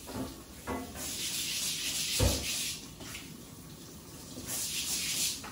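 Kitchen tap running in two bursts while a bowl is rinsed in the sink, with a knock of the bowl against the sink about two seconds in.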